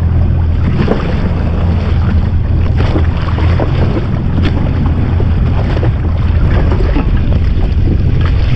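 Yamaha SHO jet ski's engine running steadily on the open sea, with wind buffeting the microphone and irregular slaps of water.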